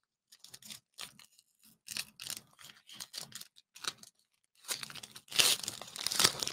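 Foil Pokémon booster pack wrapper crinkling and tearing open, in a run of short crackles that is loudest near the end.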